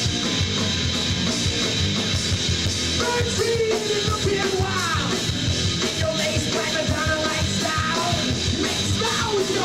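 Punk rock band playing live and loud.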